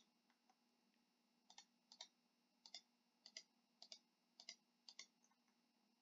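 Faint computer mouse clicks, each a quick double tick of press and release, coming about every half second to second as list checkboxes are ticked one after another. They start about a second and a half in.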